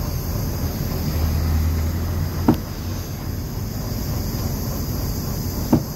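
City bus engine running, heard from inside by the front door steps as a steady low rumble that swells for a moment about a second in. Two sharp knocks, about two and a half seconds in and near the end.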